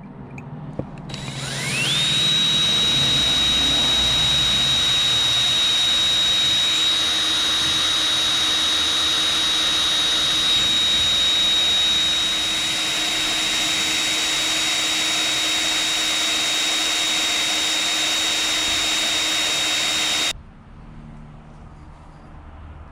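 Electric drill spinning up with a rising whine and running at a steady high pitch while drilling out a bolt hole in a steel ATV hitch bracket to widen it, then stopping abruptly near the end.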